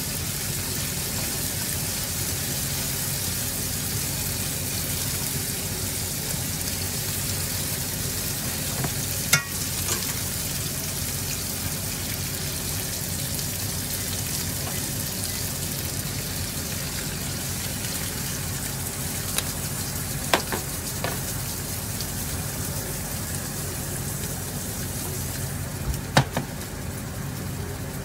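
Pork and chicken sizzling as they fry in a pan, a steady hiss, with a few sharp clicks of a utensil against the pan about a third of the way in and again near the end.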